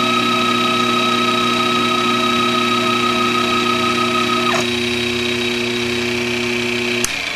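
Sherline 5400 CNC mill running, its spindle motor and stepper-driven axes whining steadily as a small end mill cuts a blue block. One of the tones drops out about halfway through, and most of the others cut off with a click near the end.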